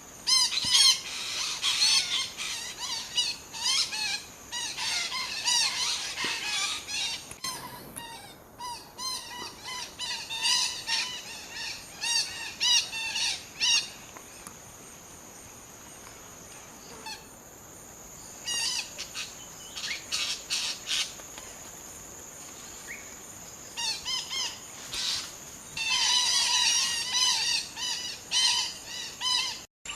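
Wild parakeets calling with many short, repeated squawks, busiest in the first half and again near the end. A steady high-pitched tone joins about halfway through.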